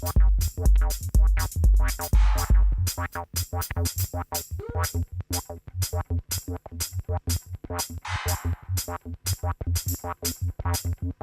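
Electronic dance music from a DJ set: a drum-machine beat with regular hi-hats over a pulsing synth bass. A heavy deep kick drops out about three seconds in, leaving a lighter bass line, and swelling noise sweeps rise around two seconds and again around eight seconds.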